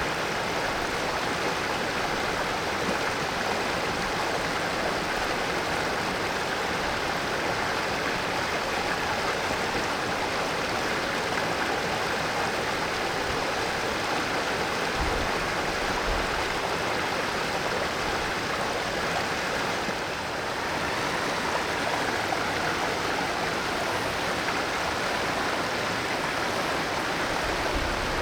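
Valley stream water flowing, a steady rushing sound, briefly a little softer about twenty seconds in.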